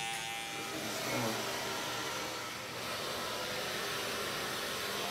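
Electric hair clippers running during a haircut. A buzzing hum in the first second gives way to a steady rushing whir.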